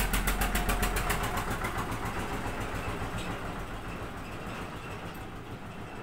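A small machine running down: a rapid, even ticking of about ten a second over a low hum, growing steadily fainter.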